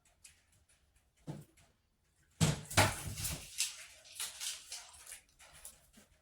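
Handling noise: a single light knock, then a run of clattering knocks and rustling, loudest about two and a half seconds in and dying away over the next few seconds.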